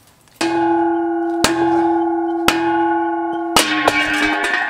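A large metal diesel exhaust tip being knocked loose with a hammer: about five blows roughly a second apart, each setting the tube ringing like a bell. The pitch of the ringing drops slightly near the end as the tip comes free, dented by the blows.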